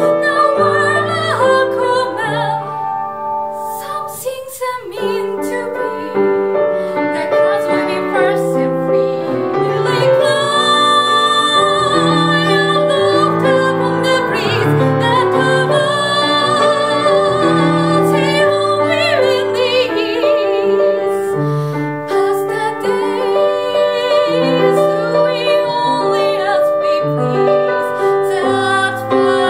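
A woman singing a song with vibrato, accompanied by a grand piano, with a short break in the vocal line about four seconds in.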